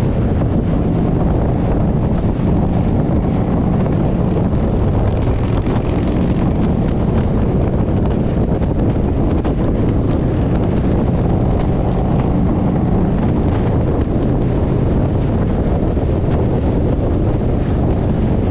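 Motorcycle running steadily at cruising speed, its engine drone mixed with heavy wind rushing over the microphone.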